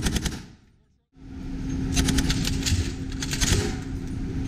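Machine-gun fire from a ship's deck: a short burst at the start. After a break about a second in, a long stretch of rapid, rhythmic firing follows over a steady hum.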